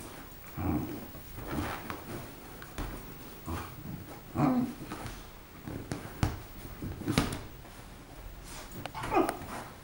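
Gordon Setter puppy making a series of short whimpers and grumbles, one near the end rising in pitch, with a few sharp clicks in between.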